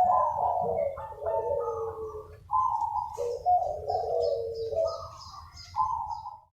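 Several zebra doves cooing over one another in a back-and-forth chorus of rolling, trilled coo phrases, with faint high chirps above them; the sound cuts off suddenly near the end.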